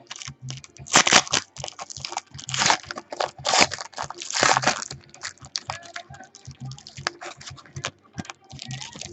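A foil trading-card pack wrapper being torn open and crinkled, in several loud rips over the first five seconds, followed by softer crinkles and clicks.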